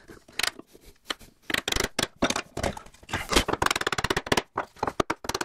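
Wooden mallet striking a narrow bench chisel into wood, a rapid run of sharp knocks: the round ends of machine-bored mortises being chopped square.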